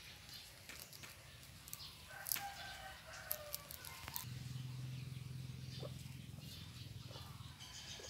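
Guinea pigs chewing and rustling fresh grass and hay, heard as scattered sharp clicks and crackles. A short pitched call, falling slightly, comes about two seconds in, and a low steady hum sets in about halfway through.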